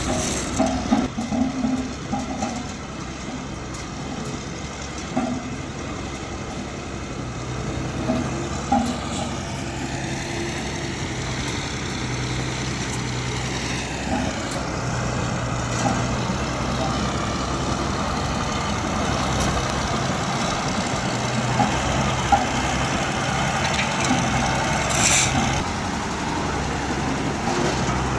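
Road roller's diesel engine running steadily, with a few knocks and a short hiss near the end.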